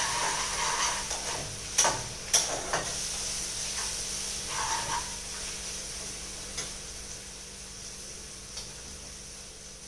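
Onion-tomato masala with ground spices sizzling in oil in a pan, stirred with a spatula that clicks against the pan a few times about two seconds in. The sizzle gradually dies down.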